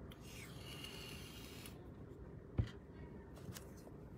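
Quiet handling of a cardboard trading-card blaster box: a faint rustle for the first second and a half or so, then a single soft knock about two and a half seconds in.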